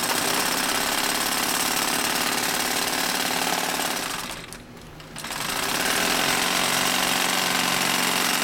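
Consew 255RB-3 walking foot industrial sewing machine, driven by a clutch motor, running steadily as it stitches through heavy leather. It stops for about a second roughly halfway through, then sews on again.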